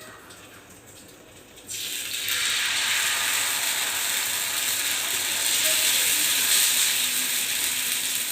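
Dosa batter sizzling on a hot tawa greased with oil. The sizzle starts suddenly about two seconds in as the batter is poured, then runs on steadily.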